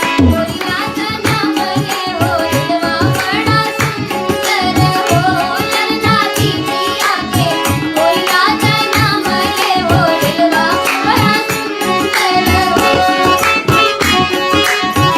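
Indian devotional song: a gliding melody over a steady tabla rhythm, with singing.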